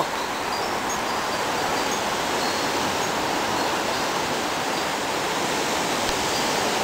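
Strong wind blowing steadily through trees, a continuous rushing of leaves and branches.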